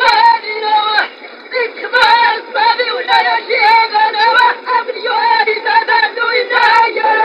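A poet's voice chanting verse in a sung, melodic line with held notes, thin-sounding with no low end, pausing briefly about a second in.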